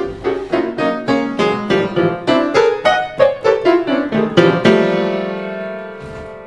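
Piano music: a run of quick single notes that ends about two-thirds of the way through on a held chord, which slowly fades away.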